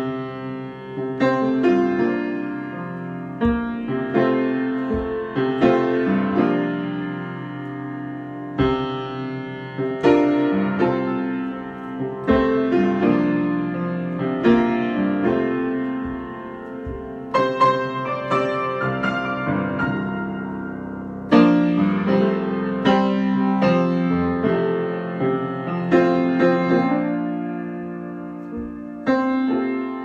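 Grand piano played solo, improvised: struck chords and melody notes over low bass notes, each attack ringing on and dying away before the next phrase.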